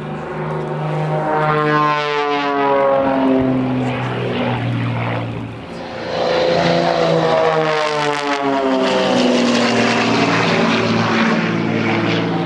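A pair of XtremeAir XA41 aerobatic planes flying in formation, their propeller-driven piston engines droning loudly. The engine note glides down in pitch twice, once in the first half and again in the second.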